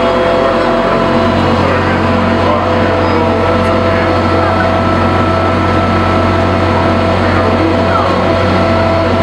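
Epcot FriendShip boat's engine running steadily, heard on board as an even drone with several held tones.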